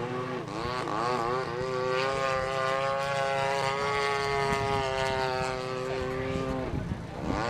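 Radio-controlled model airplane's engine and propeller in flight. It holds a steady note for several seconds, and the pitch swoops down and back up as it passes and turns, briefly near the start and again near the end.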